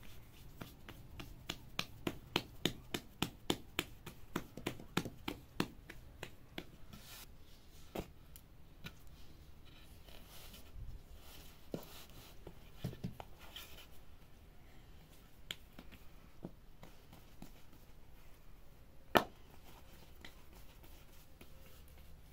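A quick run of sharp knocks, about three or four a second for several seconds, then scattered single knocks, with one much louder knock near the end.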